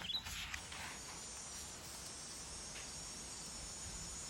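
Faint, steady chirring of crickets, a meadow ambience sound effect.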